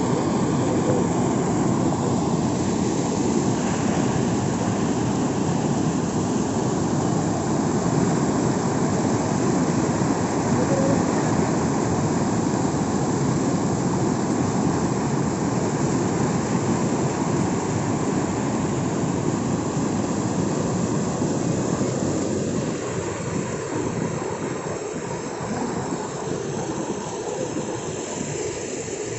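Floodwater rushing and churning over a submerged road bridge: a loud, steady rushing noise that grows a little quieter over the last few seconds.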